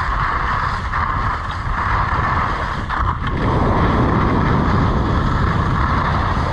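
Wind rushing over an action camera's microphone during a fast descent on a groomed ski slope, with a steady hiss of edges sliding on packed snow; the low wind rumble grows louder about three seconds in.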